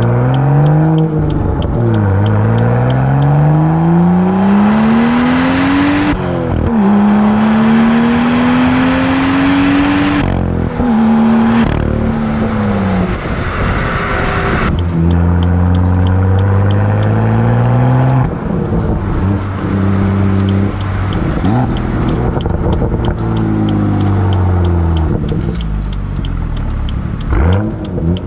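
BMW M2's N55 3.0-litre turbocharged straight-six under full throttle, rising in pitch through three pulls with quick gear changes about 2 and 6.5 seconds in, heard at the exhaust. The driver lifts off about 10 seconds in, then the engine holds steady and falls away as the car coasts, with a short rev near the end.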